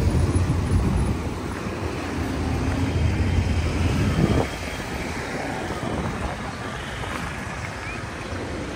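City street traffic: a vehicle's engine rumbles loudly close by and falls away about four and a half seconds in, leaving lighter traffic noise and faint voices.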